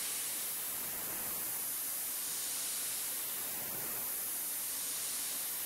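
Steady hiss of a CNC mill's air-mist coolant spray while an end mill faces off a copper part.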